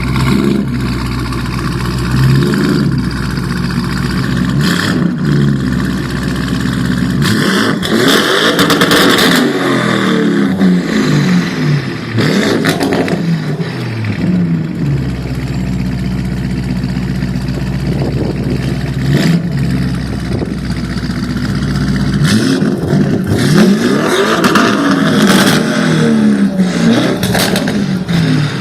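Supercar engine being revved over and over, its pitch rising and falling in repeated sweeps through a loud exhaust.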